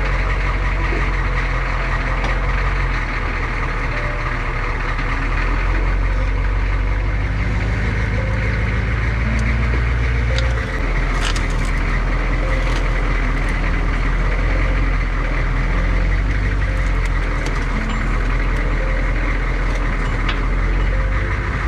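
Humvee's diesel V8 engine running steadily after start-up. Its note rises a little about seven seconds in and drops back near eleven seconds.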